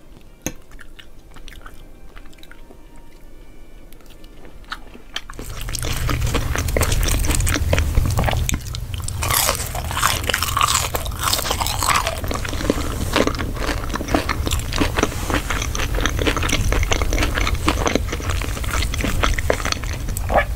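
Faint knife-and-fork clicks on a glass plate, then about five seconds in, loud close-miked ASMR eating: crunchy biting and chewing of french fries and fried food, with a steady low hum underneath.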